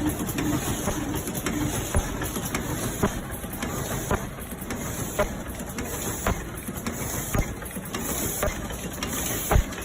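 Automatic double-layer paper lid forming machine running, a steady mechanical whir with a sharp clack about once a second as it cycles.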